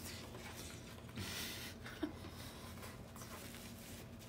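Quiet eating noises over a low steady room hum: a man chewing a mouthful of crunchy hard-shell taco, with a brief scratchy rustle about a second in and a small click a little later.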